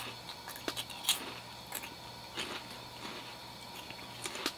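Crunchy cone-shaped corn snacks (Kkokkalcorn) being bitten off the fingertips and chewed, with scattered crisp crunches about a second apart.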